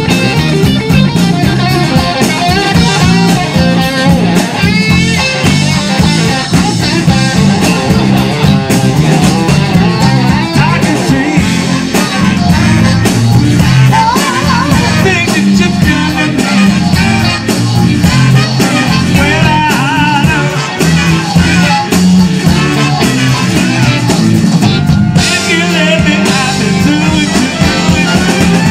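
Live band music, loud and continuous: electric guitar over drum kit and bass, with singing.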